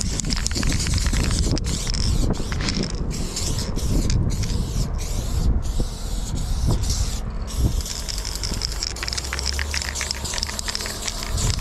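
Aerosol spray paint can hissing in bursts, cut off briefly about ten times in the first seven seconds between strokes.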